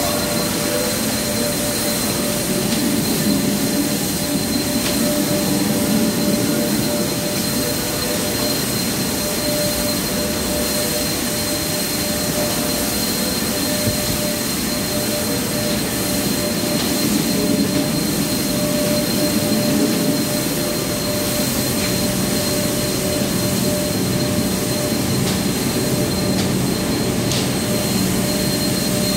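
Portable motorized disinfectant sprayer running with a steady whine inside a metro car, spraying mist over the seats and poles.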